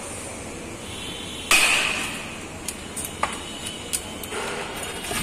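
A sharp metallic clank with a short ring about a second and a half in, followed by a few lighter metal clicks, from handling a long-handled manual lever pop-rivet gun on a steel frame.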